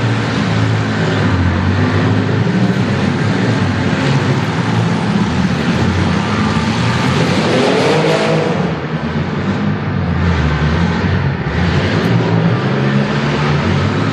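Engines of several compact demolition derby cars running together, with one revving up sharply about seven seconds in.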